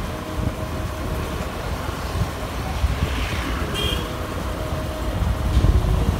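Riding noise from a motor scooter in city traffic: wind buffeting the microphone over the engine's hum and passing traffic, with a short horn beep about four seconds in.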